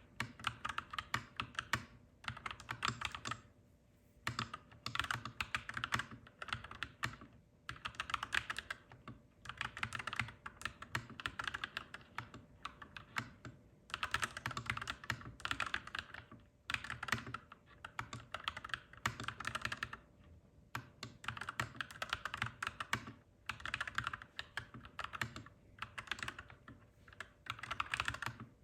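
Clacky mechanical keyboard being typed on in fast bursts of keystrokes, each run lasting a second or two, with short pauses between them.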